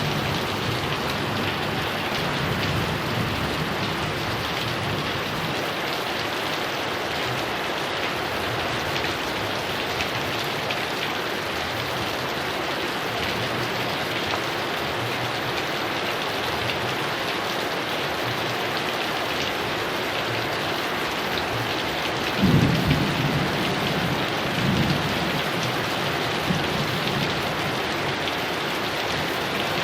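Heavy rain falling steadily, with a loud low rumble of thunder about three quarters of the way through and a weaker one just after.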